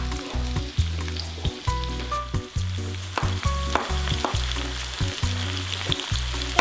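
Sliced onions, bell peppers and mushrooms sizzling as they fry in avocado oil in a pan, a steady hiss, over soft background music.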